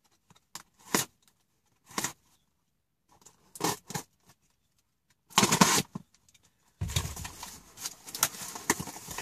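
Parcel packaging being unwrapped by hand: a few separate paper and cardboard rustles and scrapes, the loudest about five and a half seconds in. From about seven seconds on, continuous crinkling of packing paper.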